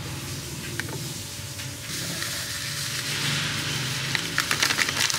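A wire whisk stirring thick cream-cheese batter in a bowl, a soft wet swishing. About two seconds in it gives way to the hiss of instant coffee powder being poured into the bowl, with a quick run of pattering ticks near the end.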